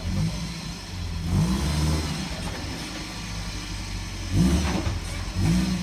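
Toyota pickup truck's engine revving in short throttle blips, about four surges, as it crawls over boulders under load.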